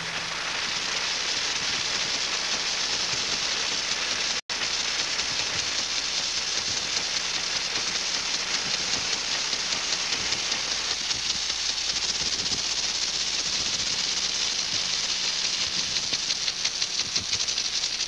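Impact sprinklers on an overhead irrigation line spraying water: a steady hiss with a fast, rattling tick. It cuts out for an instant about four seconds in.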